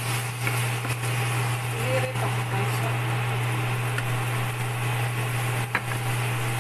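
Chorizo and asparagus frying in a nonstick pan and being stirred with a spatula, over a steady low hum, with a sharp click of the spatula against the pan near the end.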